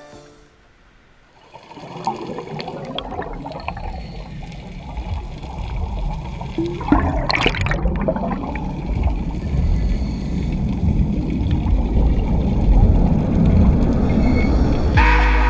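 Underwater sound during a scuba dive: a steady low rumble of water with scuba exhaust bubbles, a louder rush of bubbles about seven seconds in. Music comes in near the end.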